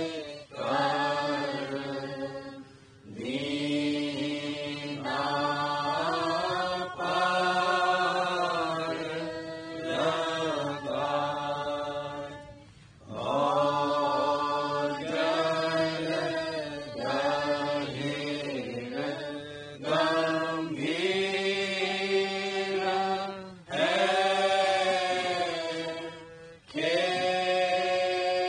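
Devotional verses (shabd path) chanted in Hindi, line by line with short pauses between phrases, over a steady low hum.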